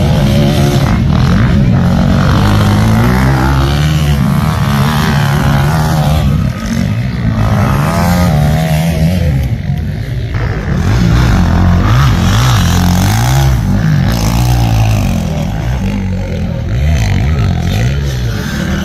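Racing motorcycles running and revving, more than one at once, their engine pitch repeatedly climbing and dropping back as they accelerate and shift gear.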